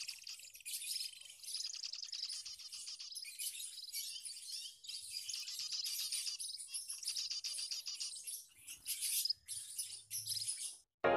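A flock of small aviary finches chirping and twittering together: a dense, busy stream of high, thin calls and quick trills that thins out near the end.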